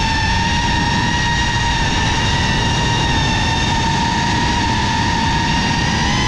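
GEPRC CineLog35 cinewhoop drone in flight, its brushless motors and propellers making a steady high whine that holds nearly one pitch, heard through the camera mounted on the drone.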